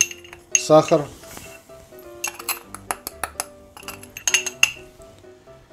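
A small ceramic bowl clinking against a stainless steel saucepan in quick clusters of sharp clicks as sugar is tipped out of it, over background music.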